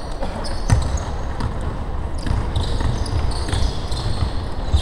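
Basketball game on a hardwood court: sneakers squeaking, footfalls and the ball thudding, with the loudest thump a little under a second in.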